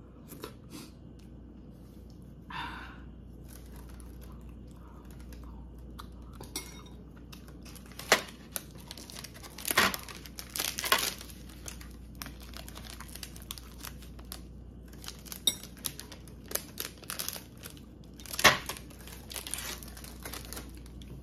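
A wrapper crinkled and torn open by hand: sharp crackling and ripping starts about eight seconds in, loudest around ten seconds and again near the end.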